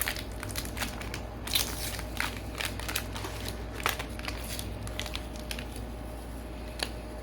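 Gloved hands handling taped packaging, making irregular crinkling and crackling with scattered small clicks.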